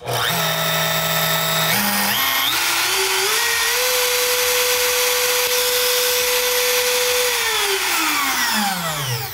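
Makita compact router running free on a test run. Its motor whine climbs in steps to a steady high pitch over the first few seconds and holds there. From about seven seconds in it falls away as the router is switched off and spins down. It runs properly: the router works.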